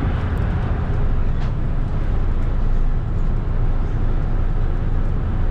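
Steady low rumble of a Thames Clipper catamaran river bus under way, its engines and hull noise heard from inside the passenger cabin.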